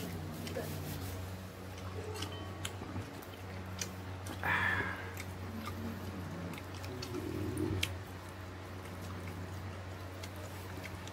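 Small wet tearing, squishing and chewing sounds as boiled dog meat is pulled off a drumstick bone by hand and gnawed, over a steady low hum.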